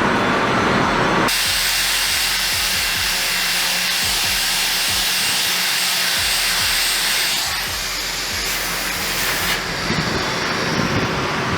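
A loud, steady hiss that starts abruptly about a second in and runs without a break, easing slightly for a couple of seconds near the middle.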